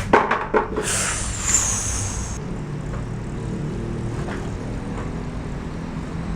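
A vehicle's engine running with a steady low hum, a few sharp knocks in the first half second, and a brief high-pitched squeal from about one to two and a half seconds in.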